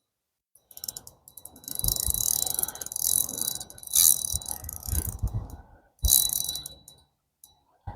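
Fishing reel's gears and clicks ratcheting in several bursts while a hooked channel catfish is played on a light rod.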